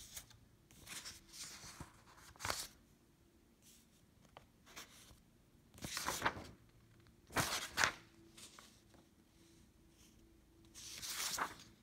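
Loose sheets of printed paper rustling and shuffling by hand in several short bursts, the loudest a little past the middle and again near the end.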